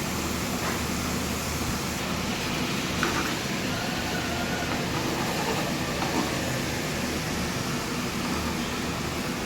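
Tofu frying in hot oil in a pan, a steady sizzle, with a couple of light knocks, about three seconds and six seconds in, typical of a spatula against the pan. The tofu is being fried half-cooked so it holds together.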